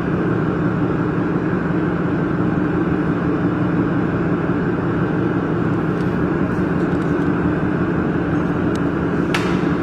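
Steady low mechanical hum with a few faint clicks near the end.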